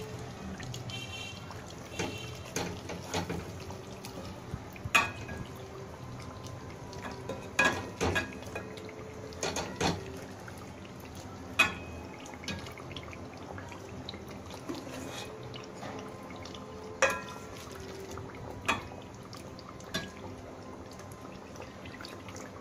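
A spoon scooping thick chicken curry out of an aluminium pot and tipping it into a serving dish: wet slopping of gravy, with sharp knocks of the spoon against the pot now and then.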